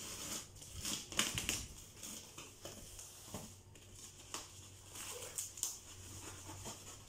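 A knife blade slitting through the packing tape and plastic wrapping of a parcel, with crinkling of the plastic and scattered short scrapes and clicks as the wrapping is cut and pulled open.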